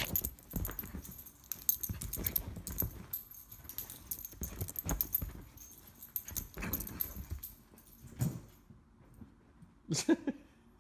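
A dog digging and burrowing in bedding: irregular scratching and fabric rustling, then a brief dog vocalization near the end.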